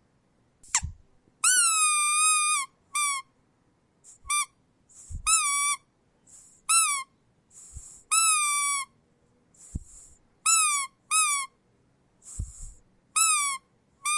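Rubber squeak toy squeezed over and over: about ten squeaks, some short and some held for about a second, each jumping up in pitch and then settling on a steady tone. Short hisses come between some of the squeaks.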